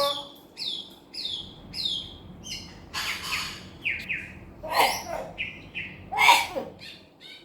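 Hill myna (beo) chirping and calling: a run of short falling chirps, about two a second, a harsher noisy call about three seconds in, and two lower falling calls in the second half, the last the loudest.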